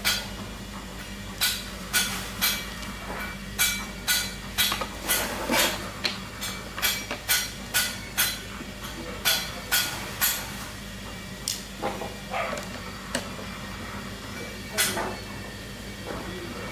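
Irregular sharp knocks and clicks, like light tapping or hammering on a hard surface: close together for the first ten seconds or so, then sparser. A steady low hum runs underneath.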